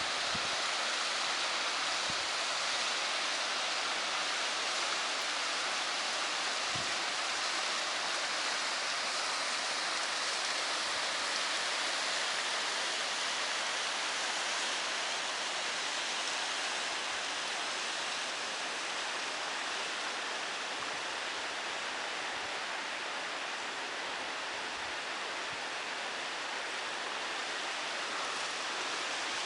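Mountain waterfall rushing: a steady, unbroken roar of falling water.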